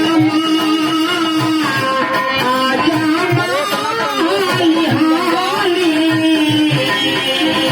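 Live Indian devotional folk music: regular dholak drum strokes under a wavering instrumental melody over a held drone note.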